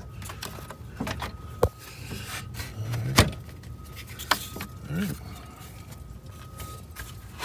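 Radiator cooling fan assembly being worked into place in an engine bay by hand: scattered knocks and clicks of plastic and metal parts, the sharpest about three seconds in.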